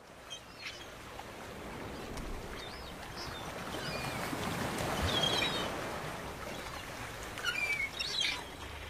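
Ocean surf washing in, swelling to its loudest about halfway through and easing off, with scattered short bird chirps and calls over it.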